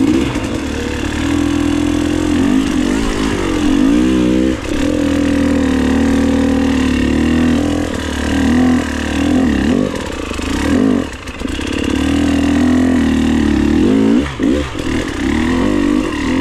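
KTM enduro dirt bike engine running at low revs, the throttle blipped so the revs rise and fall several times.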